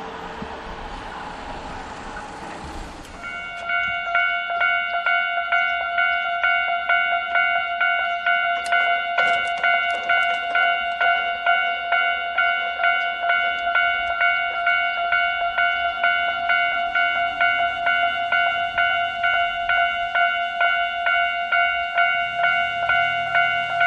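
Japanese railway level-crossing warning bell starting up about three seconds in, sounding its electronic ding repeatedly at about one and a half strokes a second: the signal that a train is approaching and the crossing is closing. Before it starts there is only a low rushing noise.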